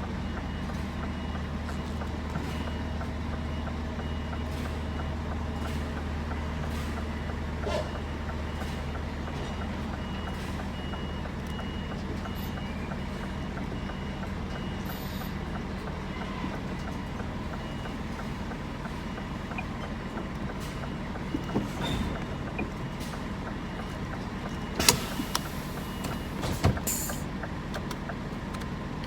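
Scania lorry engine running steadily while reversing a trailer onto a loading bay, with its reversing alarm beeping in a regular series. Near the end the beeping stops, and a few sharp knocks and a short air hiss follow as the truck comes to rest on the bay.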